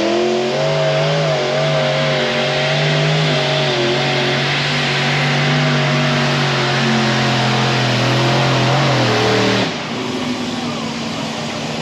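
Modified pulling tractor's several supercharged engines at full throttle under load, pulling the brake sled: a loud, steady drone that holds its pitch. About ten seconds in the engines come off throttle abruptly and the sound drops to a quieter steady running.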